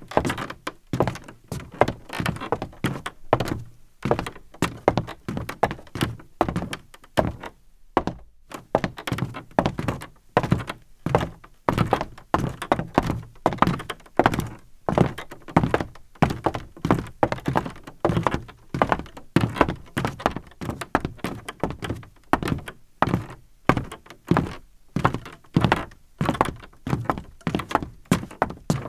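Footsteps of a person walking over grass and pavement, picked up close by a handheld camera as a continuous, uneven run of dull thumps, two or three a second.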